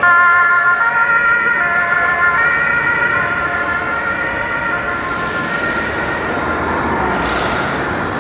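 German two-tone fire service siren (Martinshorn) alternating between a low and a high pitch, growing fainter over several seconds as the vehicle drives away. Passing road traffic rises near the end.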